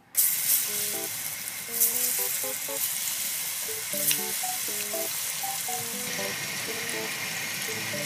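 Flour-coated chicken pieces deep-frying in hot oil in a small pan: a loud, steady sizzle that starts abruptly just after the start, with a few sharper crackles and pops along the way.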